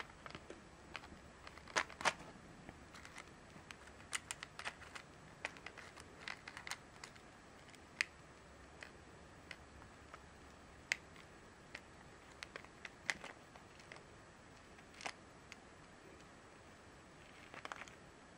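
Faint, irregular small metallic clicks and ticks as a steel split key ring is pried open by fingers and a phone-strap cord is worked onto it. A brief rustle comes near the end.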